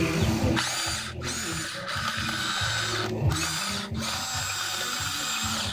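Huina 1594 RC excavator's electric motors and gearboxes whining as the upper body swings and the arm moves, cutting out briefly several times and rising in pitch each time they start again.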